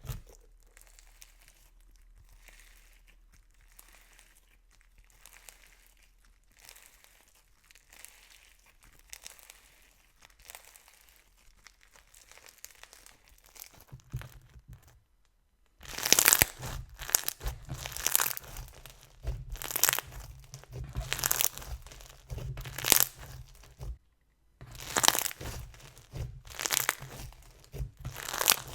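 White glue foam slime packed with foam beads being squeezed and worked by hand, giving dense crunching and crackling with sharp pops. It is faint for the first half and much louder from about halfway in, with a brief pause near the end.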